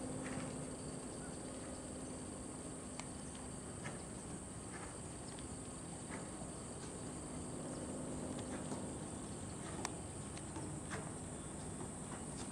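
Steady high-pitched chirring of crickets, with scattered faint clicks and soft thuds from a horse's hooves trotting on sand footing.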